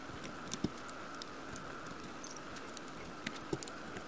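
Scattered light clicks and ticks as metal J clips and welded-wire cage panels are handled and fitted with J-clip pliers.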